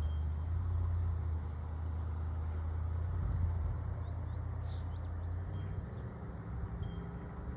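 Low, steady vehicle-like rumble that slowly fades, with a few faint high bird chirps about halfway through.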